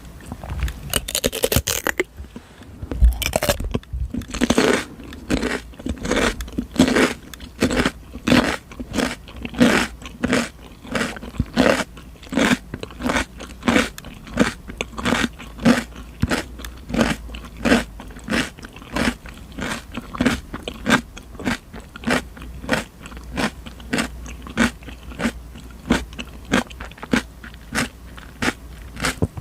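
Raw cucumber being bitten with a crisp crunch about a second in, then chewed in steady crunchy chews, about two a second, close to the microphone.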